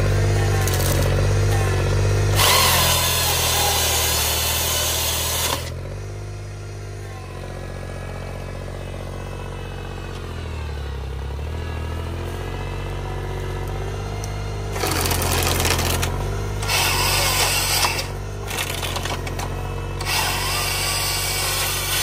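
Small 25-hp tractor engine driving the hydraulics of a homemade single-grip harvester head, its pitch sagging and recovering under load. Four loud stretches of the head's chain saw cutting: one of about three seconds near the start, and three shorter ones in the last third.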